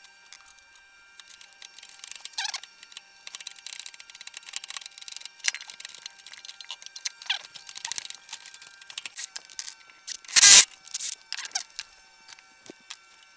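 Metal hand tools clinking and rattling against a motorcycle engine as its side cover is taken off, with one loud knock about ten seconds in.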